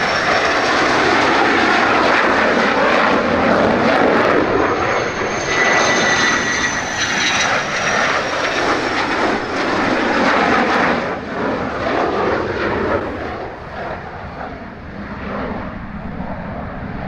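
F-16 fighter jets, each with a single Pratt & Whitney F100 turbofan, passing low on landing approach one after another with a loud jet roar. A high engine whine falls in pitch as each jet goes by, once at the start and again about six seconds in. The roar eases off over the last few seconds.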